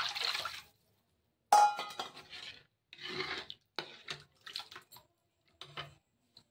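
Steel bowl of gram-flour batter tipped into a steel kadai, then a slotted steel spatula stirring and scraping around the kadai: a brief pour at the start, a ringing metal clink about a second and a half in, then a run of short scrapes.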